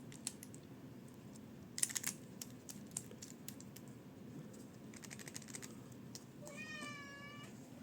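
Faint small clicks and taps of mechanical pencil parts being handled and fitted, loudest in a cluster about two seconds in. Near the end a cat meows once, a wavering call lasting about a second.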